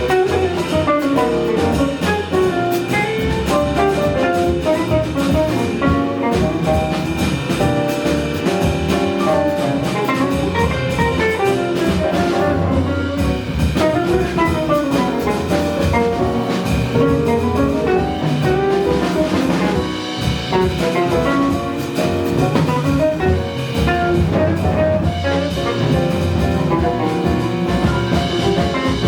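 Live jazz band playing, with a saxophone and drum kit among the instruments.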